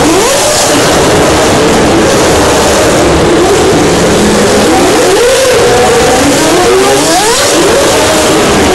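GP2 single-seaters' Mecachrome V8 engines, loud at close range as the cars pass one after another, each engine note climbing in pitch and dropping back as the car accelerates up through the gears.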